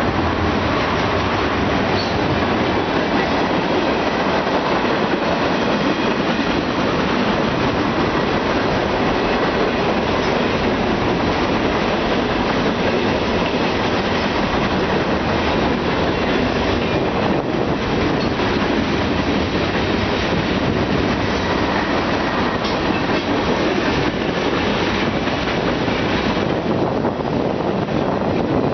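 Freight cars of a Union Pacific manifest train rolling past at track speed: a steady, loud rumble and rush of steel wheels on rail, with faint clicks from the rail joints.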